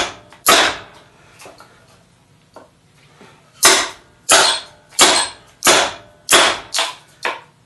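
Small sledgehammer striking the spine of a steel machete test blade, driving its edge down through a 2x4 clamped in a vise. Two blows, a pause of about three seconds, then a steady run of seven blows that come a little quicker near the end.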